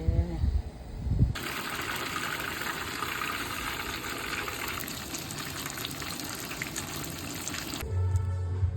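Fish frying in hot oil in a pan on a portable camping stove: a steady sizzle that starts about a second in. Music comes in near the end.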